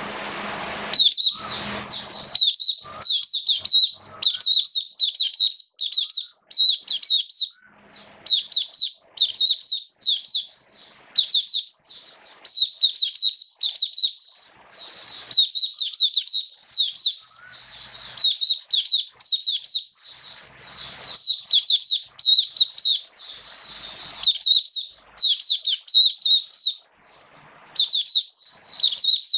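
White-eye singing a long, rapid, high-pitched twittering song in quick runs of notes, one after another with only brief gaps. A steady rushing noise cuts off about a second in.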